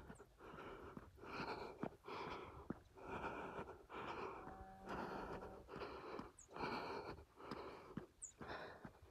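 A person breathing hard and rhythmically while exercising up a hill, about three breaths every two seconds, close to the microphone.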